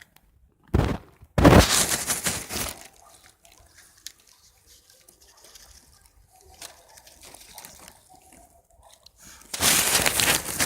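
Plastic bag rustling and crinkling, loudly for about a second and a half starting about 1.5 s in and again from near the end, with faint handling rustles between.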